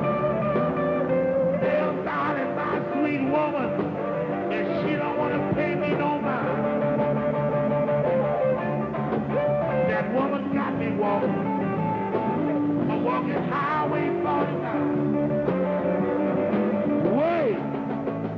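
Electric blues band playing, with a harmonica cupped against a vocal microphone wailing over guitar and drums, its notes bending up and down.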